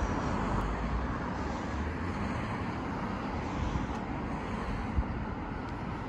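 Steady hum of road traffic passing on a nearby street, with a low rumble underneath.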